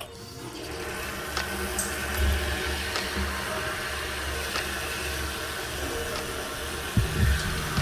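Water running steadily into a grooming tub. A few low bumps come near the end.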